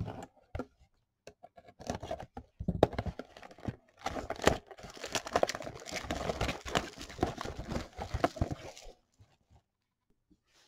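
Plastic wrapping being crinkled and torn, a dense run of crackles and snaps that stops about nine seconds in.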